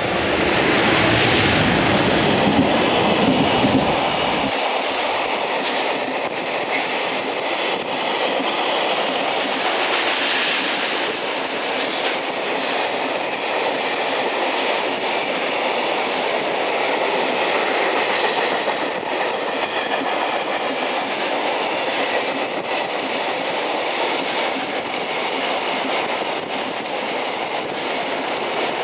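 JR Freight EF210 electric locomotive passing close by, loudest with a deep rumble for the first four seconds or so. Then a long train of container wagons rolls steadily past.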